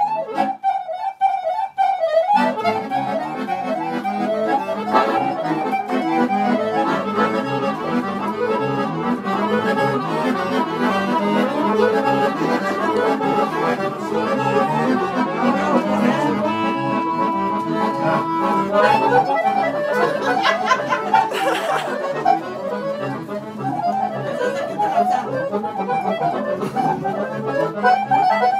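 Accordion playing an instrumental tune in Romanian party-music style. It starts as a thin single melody line, fills out into full chords with a dense run of notes about two seconds in, and holds one long chord around the middle.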